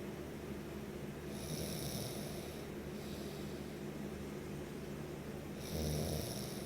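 A person snoring in sleep: two snoring breaths about four seconds apart, the second louder, over a steady low hum.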